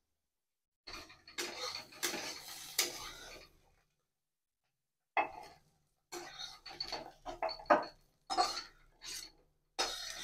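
Steel spatula scraping and scooping fried spiny gourd (kakrol) out of a kadai, in a run of scrapes from about a second in and again in short bursts from about five seconds.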